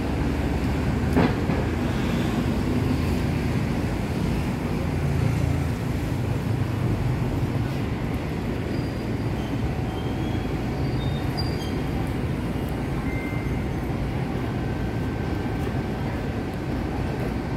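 Steady low rumbling background noise with no clear events, like traffic or the hum of a busy public space.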